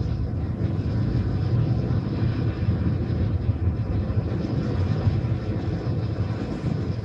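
Chainsaw sound effect: a loud, steady engine drone with its weight in the low end.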